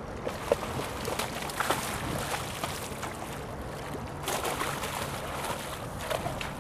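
Hooked Chinook salmon thrashing and splashing at the surface beside the boat as it is netted, in bursts about a second in and again from about four seconds in.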